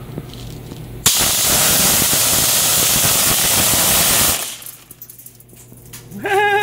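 Homemade air-powered BB machine gun firing: a loud hiss of compressed air from the air blower, blowing plastic BBs out of a pop bottle through a brake-line barrel for about three seconds, with a rapid clatter of BBs hitting. It cuts off sharply, and a short held voice sound follows near the end.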